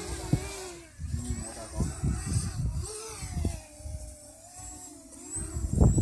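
Radio-controlled model airplane's motor droning as it flies overhead, its pitch wavering up and down as the plane turns, with a thin high whine. Wind buffets the microphone in low gusts, loudest just before the end.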